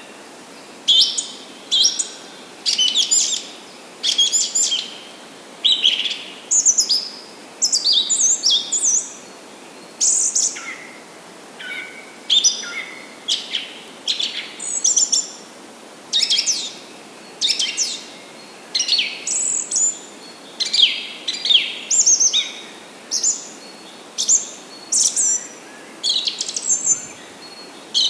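Several songbirds singing: short, high chirping song phrases, one after another, with a faint steady hiss beneath.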